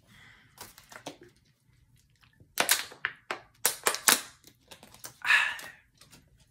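Plastic water bottle crackling and clicking in the hand as it is picked up, gripped and drunk from, with a short breathy sound near the end.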